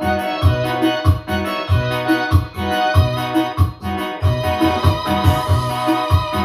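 Yamaha PSR-S750 arranger keyboard playing an instrumental passage: held melody notes over a steady bass beat of about two notes a second.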